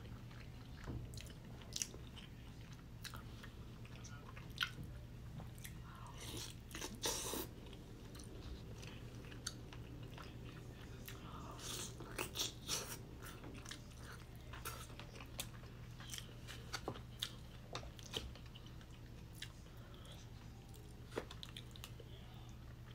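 Close-miked biting and chewing of crispy, gravy-dipped fried chicken: irregular crunches and wet mouth clicks, busiest in two spells near the middle. A steady low hum runs underneath.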